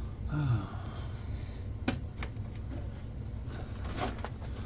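Computer cables being cut with snips and pulled around inside the case. There is a sharp snip about two seconds in and more clicks near the end, with rustling and handling of the wires in between.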